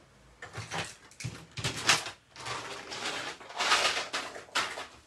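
Plastic felt-tip markers being gathered up and moved aside on a desk: a run of clatters and rustles, loudest about two seconds in.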